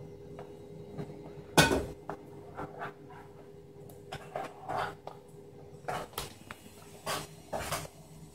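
A Yorkshire terrier's dog shoes knocking and scuffing irregularly on a laminate floor as it walks and turns, the sharpest knock about a second and a half in.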